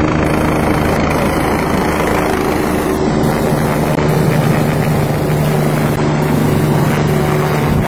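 Eurocopter EC145 helicopter's twin turbine engines and main rotor running steadily close by: a loud, constant rotor noise with a steady engine hum under it.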